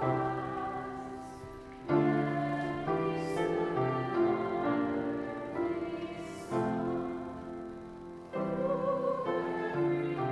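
Music: a slow passage of held chords, with new chords coming in about two seconds in, again near six and a half seconds and about eight seconds in.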